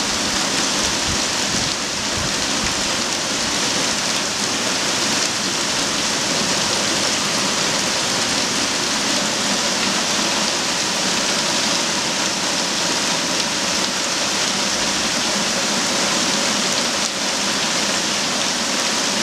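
Heavy rain pouring down onto a flooded paved tennis court, lawn and trees: a steady, even hiss.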